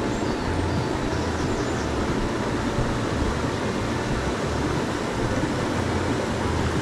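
Small mountain stream rushing over stones: a steady, even water noise.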